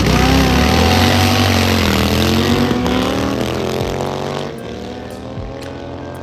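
Race car engine running hard as it passes at speed, its note shifting in pitch and then fading away about four and a half seconds in.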